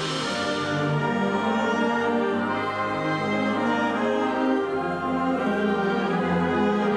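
A wind orchestra (concert band) of woodwinds and brass playing live, holding full chords at a steady loudness.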